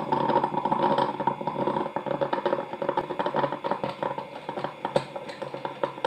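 Imarflex Aroma-Tech drip coffee maker sputtering and gurgling at the end of its brew cycle, a rapid irregular crackle that grows quieter over the last few seconds. This noise is the sign that the water reservoir has run nearly dry and brewing is finishing.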